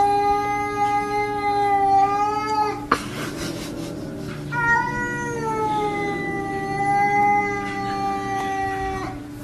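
Cat yowling in long, drawn-out howls: one ends about three seconds in, and a second starts a second and a half later and is held for about four and a half seconds.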